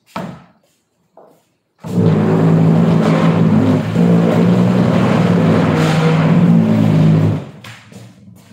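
A loud, steady motor drone with a low hum, starting suddenly about two seconds in and cutting off about five seconds later.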